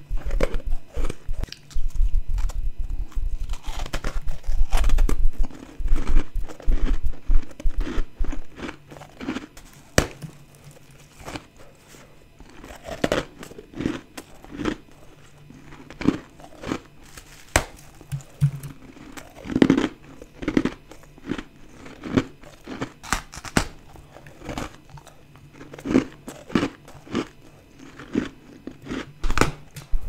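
Close-miked biting and chewing of soft, powdery frozen ice chunks. There is dense crunching for the first several seconds, then separate crisp crunches every half-second or so.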